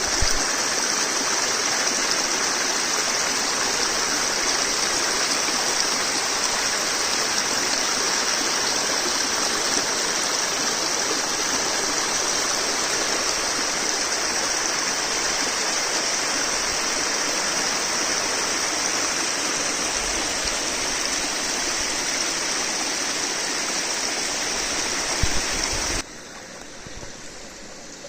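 Water of a mountain spring or stream flowing in a steady rush, which cuts off abruptly near the end.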